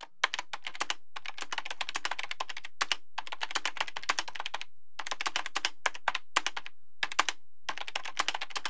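Rapid clicking like fast typing on a keyboard, about a dozen clicks a second, in bursts separated by brief pauses.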